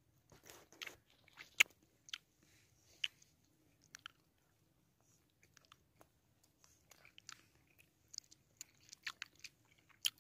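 A small child chewing a mouthful of food, faint and irregular wet mouth clicks and smacks, with a few sharper smacks among them.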